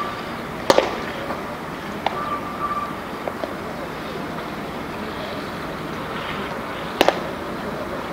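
A thrown baseball smacking into a catcher's leather mitt with a sharp pop, about a second in, over a steady outdoor background. Another sharp snap comes near the end.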